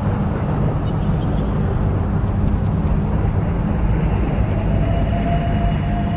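Dark horror ambience: a deep, steady rumbling drone under a noisy wash, with a thin held tone entering about four seconds in.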